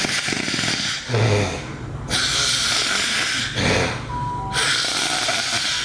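A girl snoring in her sleep: a short, low snore about every two and a half seconds, each followed by a long hiss of breath.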